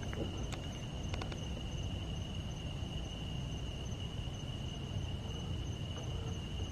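Steady, high-pitched trilling of night insects, with a low rumble underneath and a few faint clicks about a second in.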